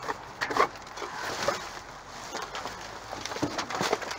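Rummaging among cardboard boxes in a dumpster: boxes being shoved and dropped, with irregular knocks and rustles, the loudest knock about half a second in.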